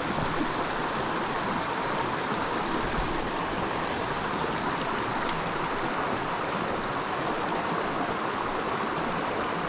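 Small mountain creek running: a steady rush of flowing water.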